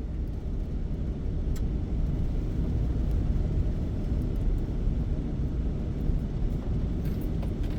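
Camper van driving, heard from inside the cab: a steady low rumble of engine and road noise.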